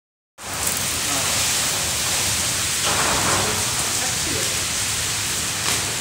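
Heavy rain falling steadily, starting about half a second in.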